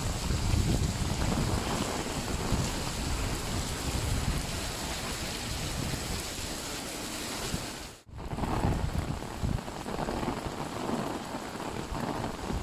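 Rain pattering on an umbrella overhead, a dense steady hiss with an uneven low rumble beneath it. About eight seconds in the sound drops out abruptly for a moment, then comes back.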